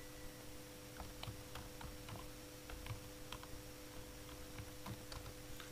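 Faint typing on a computer keyboard: a quick, uneven run of soft key clicks as a word is typed out, over a low steady hum.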